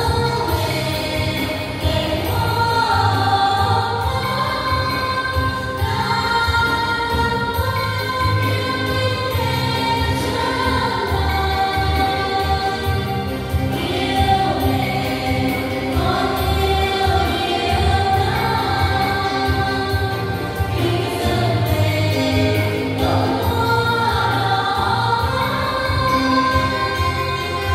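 Choir singing a hymn over instrumental accompaniment with a steady bass line.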